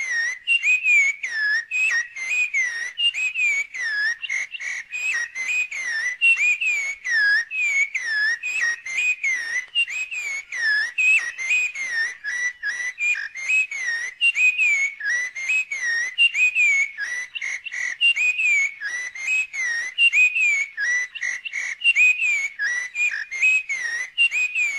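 Rapid, unbroken series of short whistled notes, several a second, each dipping and rising in pitch.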